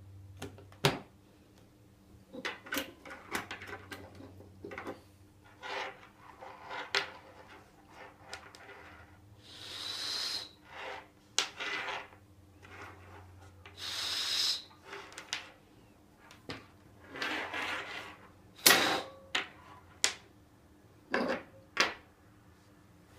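A few puffs of breath blown hard at a blowing sensor, heard as short hissing gusts, among scattered clicks and knocks of handling.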